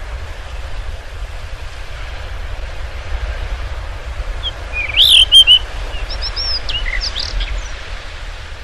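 Blue rock thrush calling: after a few seconds with no birdsong, a burst of chirps begins about halfway through. It opens with a sharp rising-and-falling note, then a few quick short notes and a run of short high twitters, over a steady low rumble.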